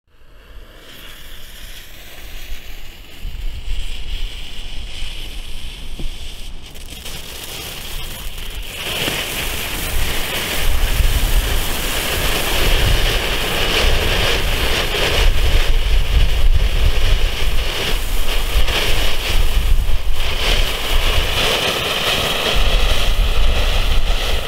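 A Funke '1000 Smaragde' mini firework fountain burning: a steady hiss of spraying sparks that builds from the start and gets louder about nine seconds in.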